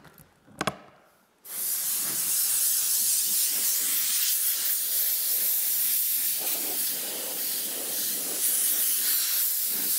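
Compressed-air blow gun hissing steadily as it blows sawdust off a freshly chainsaw-milled Douglas fir burl slab. It starts about a second and a half in, after a brief click.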